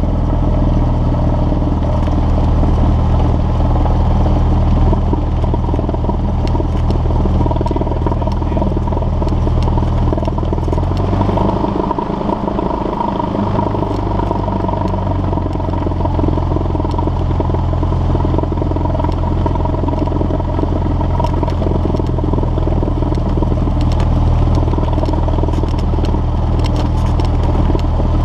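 Cessna 172's piston engine and propeller running at low taxi power: a steady low drone, with a brief dip in the engine note about twelve seconds in.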